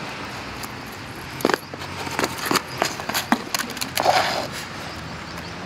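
Shoes stepping and scuffing on concrete with scattered knocks as a man staggers, then a louder scraping impact about four seconds in as he falls onto the pavement.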